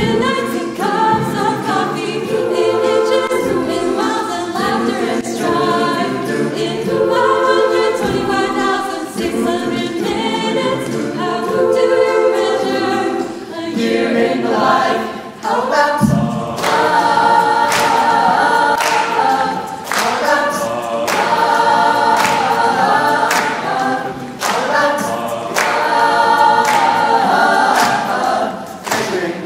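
A choir singing unaccompanied in sustained, layered chords. About halfway through, the voices move to higher, brighter held notes.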